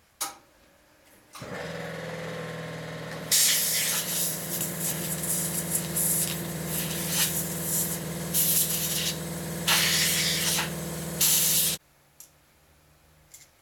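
A small air compressor starts a little over a second in and runs with a steady hum. From about three seconds in, compressed air hisses from a hose-fed blow nozzle in repeated bursts aimed at the sewing machine's needle-bar mechanism. Hum and hiss cut off together near the end.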